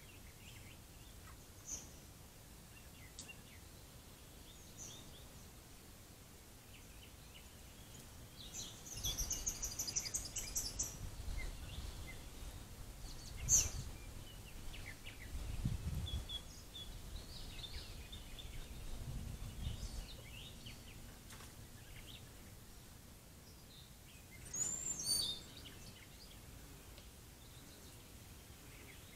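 Outdoor ambience with birds calling and singing: scattered short chirps, a high trill about a third of the way in, and a sharp call around the middle. A low rumbling noise comes and goes through the middle stretch.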